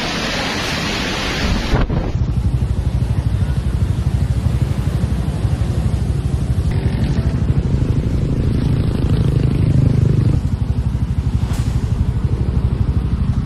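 Storm wind rushing hard for about two seconds, then a sudden cut to a steady low rumble with a fast, even pulsing that lasts to the end.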